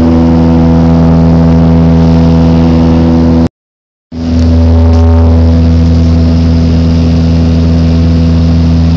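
Cabin sound of a Saab turboprop airliner in flight: the steady drone of the propeller and engine, a strong low hum with several steady tones above it. It breaks off for about half a second a little past three and a half seconds in, then resumes unchanged.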